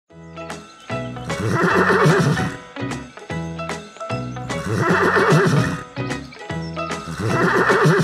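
An equine whinny, a long wavering call repeated three times about every three seconds, over background music.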